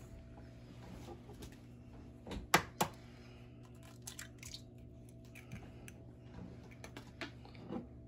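An egg cracked against the rim of a stainless steel stand-mixer bowl: two sharp taps about a third of a second apart. Small clicks and rustles follow as the shell is pulled open over the bowl, with a low steady hum underneath.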